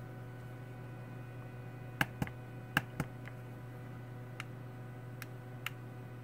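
About eight sharp, irregularly spaced clicks from a rotary encoder knob being turned notch by notch to step a frequency, starting about two seconds in, over a steady low electrical hum.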